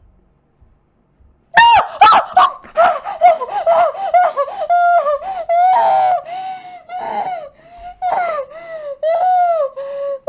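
A woman's high-pitched screaming and squealing mixed with shrieking laughter, in many short, excited bursts, starting suddenly about a second and a half in after near silence.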